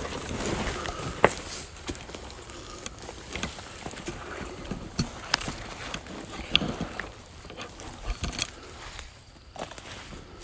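Footsteps through dry leaf litter, brush and dry grass, with leaves and twigs rustling against clothing and scattered sharp cracks of snapping twigs underfoot.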